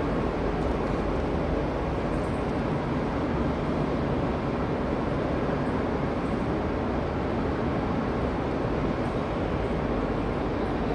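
Steady, even rushing background noise of a large exhibition hall, with no distinct events.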